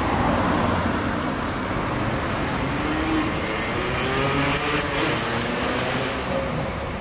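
Alstom TFS low-floor tram approaching along a curve of street track, its traction motors whining up in pitch as it gathers speed over steady street traffic noise. Two brief clicks come a little before the four- and five-second marks.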